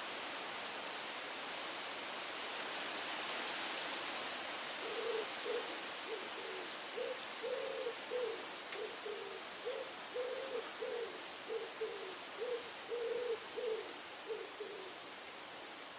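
A pigeon cooing: a string of short, low, hollow notes in repeating phrases, starting about five seconds in and stopping a second before the end, over a steady outdoor hiss.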